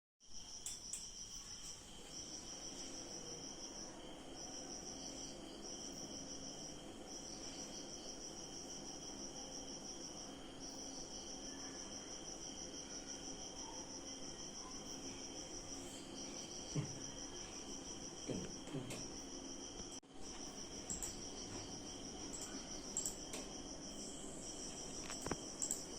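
Insect trilling, like crickets, in pulsing runs a few seconds long with short gaps between them, over a faint steady hum. A few soft knocks come near the middle.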